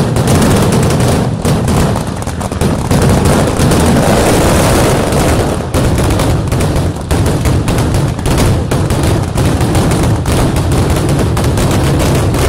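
Mascletà firecrackers: an unbroken volley of bangs, many a second, from aerial thunder charges bursting overhead.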